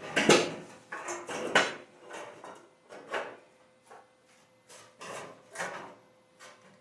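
Irregular clatter and scraping of hard objects being handled, such as metal parts and tools, in a quick run of knocks over the first two seconds and then a few scattered ones, over a faint steady hum.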